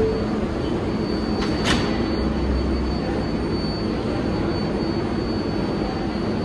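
R188 subway train running alongside the station platform: a steady low rumble with a faint steady high whine over it, and one sharp clack about a second and a half in.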